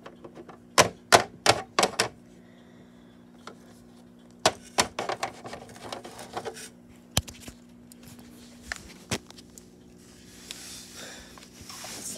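Hard plastic toy figures tapping and clicking on a plastic dollhouse floor as they are hopped along by hand, in irregular clusters of sharp taps. Near the end there is a rustle of hand-handling noise close to the microphone.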